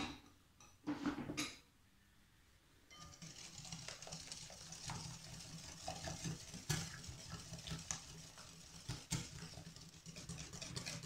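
Wire whisk beating eggs, sugar and oil in a glass bowl: a fast, continuous clatter of the metal wires against the bowl that starts about three seconds in, after a few short knocks.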